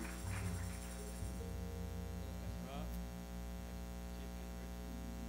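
Steady electrical mains hum, with a few soft held musical notes in the first second or so that then fade out.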